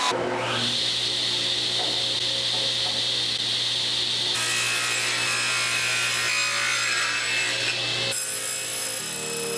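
Table saw cutting a softwood board lengthwise, the blade giving a steady whine as it runs through the wood. It stops abruptly about eight seconds in.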